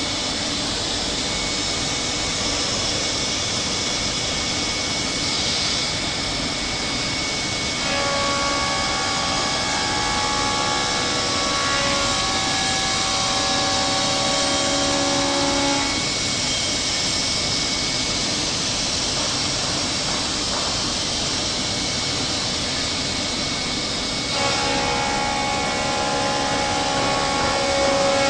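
Five-axis CNC woodworking machine (PRO-MASTER-T3A) running with its saw head working around a wooden blank: a steady mechanical noise overlaid by a whine. The whine's pitched tones come in about eight seconds in, fade around sixteen seconds, and return near twenty-four seconds as the head moves.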